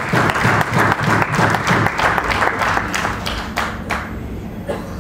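Audience applauding after a poem ends, a dense burst of clapping that thins out and dies away with a few last claps about four seconds in.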